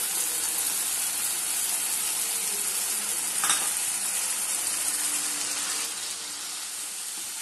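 Thick plantain gravy sizzling in a pan with its water almost boiled off, with a single knock about halfway through. Near the end a wooden spatula stirs it.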